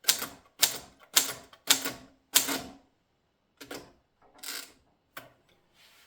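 Stoewer portable typewriter being typed on slowly: separate sharp typebar strikes on the platen, five loud ones about two a second, then four softer ones more widely spaced.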